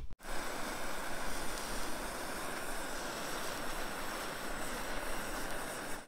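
Handheld gas torch burning with a steady hissing roar, singeing the fur off a squirrel.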